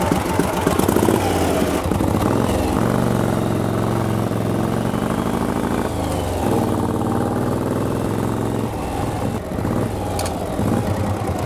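1937 Harley-Davidson Knucklehead's overhead-valve V-twin running as the bike pulls away and is ridden off. The engine note rises in pitch, breaks, and rises again twice, then drops back near the end.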